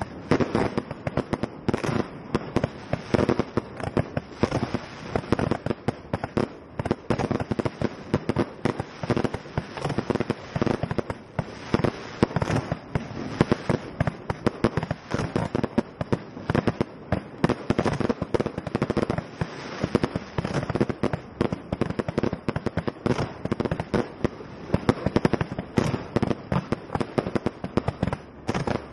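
Aerial fireworks going off in a continuous barrage: a dense, unbroken run of bangs and pops, several a second.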